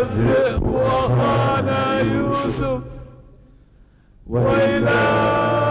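Chanted singing in long, held notes: one phrase fades out about three seconds in, and a second phrase starts about a second later.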